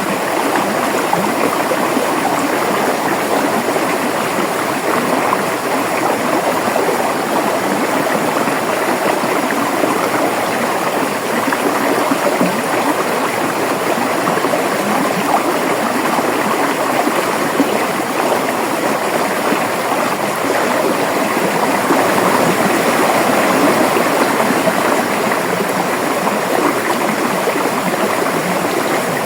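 River water flowing and babbling in a steady, even rush.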